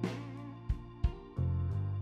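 Instrumental background music: keyboard and guitar notes over a bass line that changes several times.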